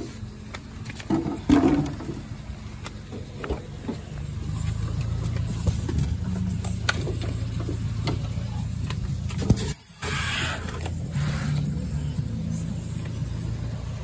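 Scattered knocks and clicks of a glass aquarium with a black frame being handled over the first few seconds. About four seconds in, a steady low machine hum sets in, as of a running engine.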